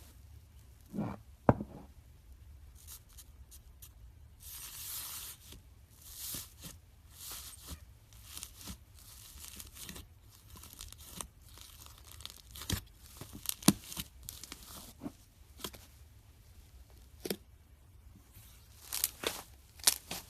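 Coffee-coloured slime being pressed, stretched and pulled apart by hand, with irregular crackling, tearing and popping sounds and one longer hiss about four and a half seconds in.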